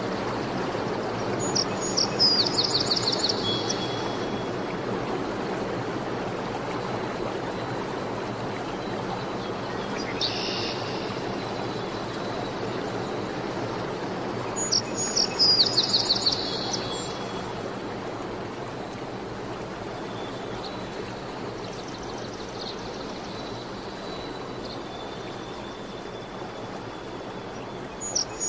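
Steady running water with a songbird singing short, fast runs of high notes that fall in pitch, about two seconds in, around fifteen seconds in and again at the very end, with a brief call near ten seconds.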